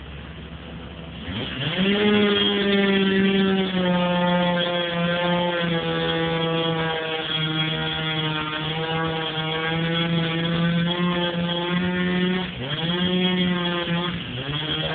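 Two-stroke chainsaw throttled up from idle about a second in, running at high revs with a slightly wavering pitch as it cuts through the tree. Its engine dips briefly near the end, revs up again, then drops back.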